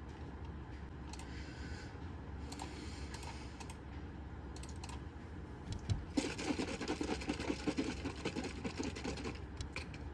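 Computer keyboard typing: scattered keystrokes at first, then a fast, continuous run of typing from about six seconds in until near the end.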